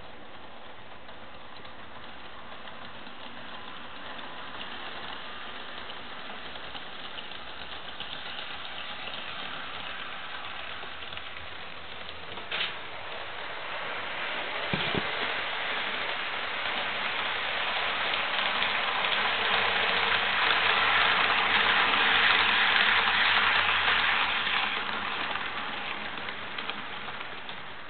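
HO scale model train running along its track, with the rush of wheels on rail and the hum of the locomotive's motor. It gets steadily louder as the train comes close past, then fades near the end, with one sharp click about twelve seconds in.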